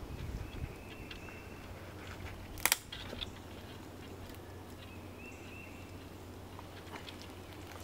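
A camera shutter fires with one sharp double click about a third of the way in, over a steady low hum. A few fainter clicks come later, and a thin high note sounds briefly twice.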